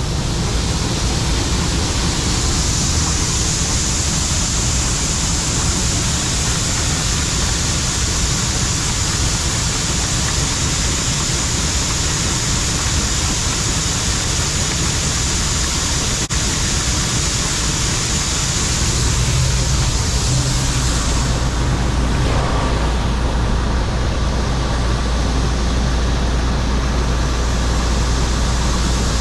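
John Deere 4400 combine running with its unloading auger engaged, emptying soybeans into a truck: a loud, steady machine noise. About 20 seconds in the sound changes and a deeper steady hum comes in.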